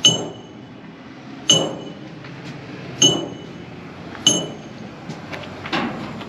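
Small metal bell on a child's play locomotive, rung with a pull cord: four clear dings about a second and a half apart, each ringing on briefly, then a duller knock near the end.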